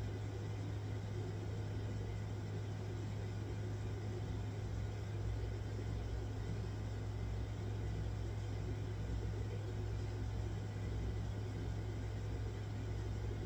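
A steady low machine hum over an even background hiss, unchanging throughout.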